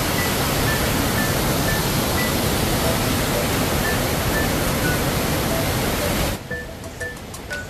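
Steady rush of a waterfall with background music notes playing over it; the water noise cuts off abruptly about six seconds in, leaving only the music.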